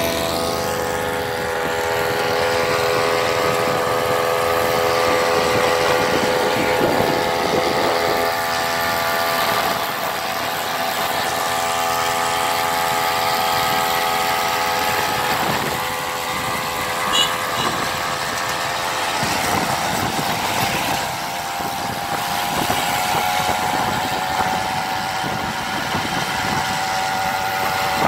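Small two-stroke 330 grass-cutter engine fitted to a bicycle, running steadily under way, its pitch drifting slightly up and down.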